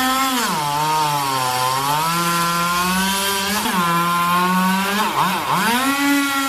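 Chainsaw engine running while cutting wood, its pitch sagging under load and picking back up, with a quick drop and recovery about five seconds in.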